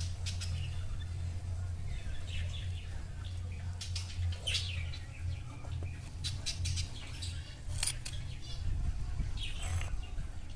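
Birds chirping in short high calls several times, over a low steady hum.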